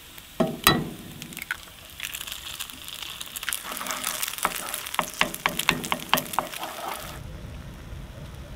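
Eggs and diced potatoes sizzling in a cast iron skillet on a wood stove, with scattered clicks of a wooden spatula in the pan and a couple of sharp knocks in the first second. Near the end the sizzle stops abruptly and a steady low rumble takes over.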